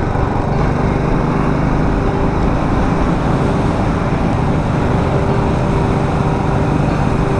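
Motorcycle engine running at a steady cruising speed, heard from the rider's seat with heavy wind and road rush on the microphone.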